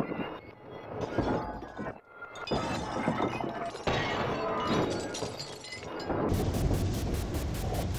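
A run of shattering, crunching crash sound effects as something breaks apart. About six seconds in, a fast, even train clatter begins, about five beats a second.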